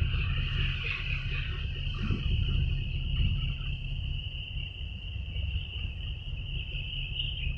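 A steady, high insect-like trill runs without a break over a continuous low rumble.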